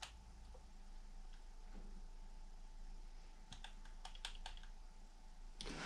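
Laptop keyboard keys being pressed: a quiet stretch, then a handful of sharp key clicks about three and a half seconds in, over a faint steady hum. A louder sound starts right at the end.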